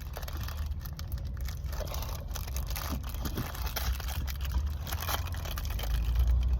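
Plastic snack wrapper crinkling and tearing as a packaged green tea cake is opened, with scattered light crackles. Under it runs the steady low rumble of a moving car's cabin.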